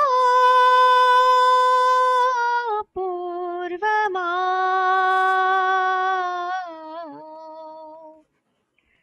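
A woman singing unaccompanied, drawing out long held notes of a slow Gujarati verse with small wavers in pitch. Her voice drops to a lower held note about three seconds in, sinks lower again, and fades out about eight seconds in.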